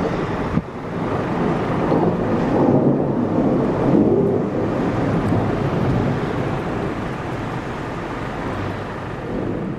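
Rainstorm: steady rain with a low rumble of thunder, swelling between about two and four seconds in. The sound dips sharply for a moment about half a second in.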